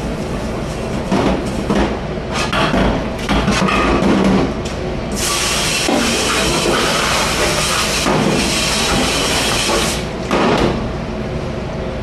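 Commercial kitchen dish-room noise: repeated clanks and knocks over a steady low rumble, with a loud rushing noise for about five seconds from around five seconds in.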